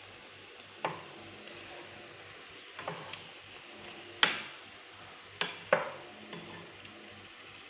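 Sausages sizzling faintly in a frying pan, with a cooking utensil knocking against the pan about five times, the loudest a little past halfway.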